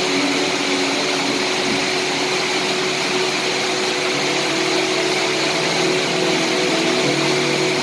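Steady rain falling, an even hiss with no letup, with a few faint sustained tones held underneath.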